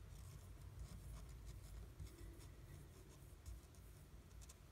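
Faint, irregular scratchy rustling of fingers rubbing a young Ragdoll kitten's fur and the blanket beneath it, over a low rumble.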